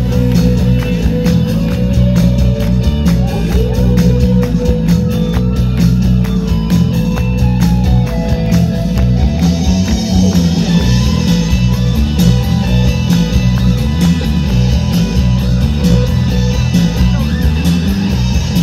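Live rock band playing: electric guitars over bass and drums, loud and dense, with a heavy low end and a steady beat.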